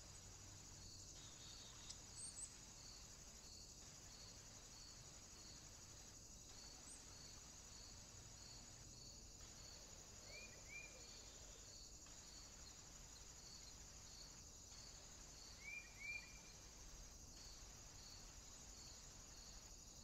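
Faint, steady high insect chirring with regular pulses about twice a second, and two brief pairs of short bird chirps, about ten seconds in and again near sixteen seconds.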